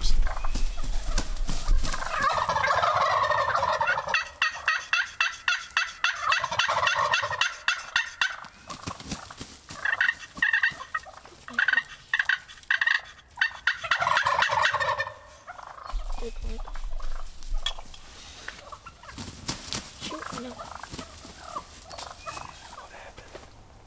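Wild turkey toms gobbling close by: several loud, rattling gobbles over the first fifteen seconds or so, after which it goes quieter.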